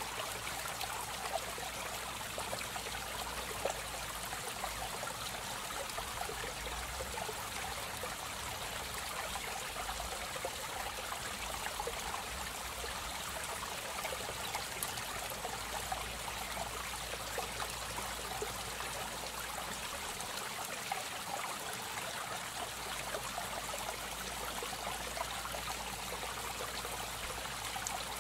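Aquarium water trickling and splashing steadily, typical of a filter return running into the tank.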